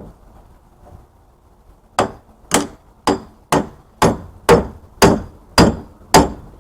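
Hammer whacking a scrap electric motor's housing to knock it loose: nine sharp blows at about two a second, starting about two seconds in.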